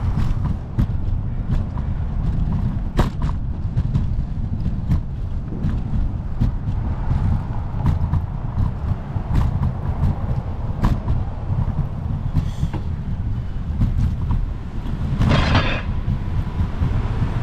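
Wind buffeting a bike-mounted action camera's microphone while cycling, over passing road traffic that swells and fades. Scattered sharp clicks and knocks run through it, and a brief loud rushing hiss comes near the end.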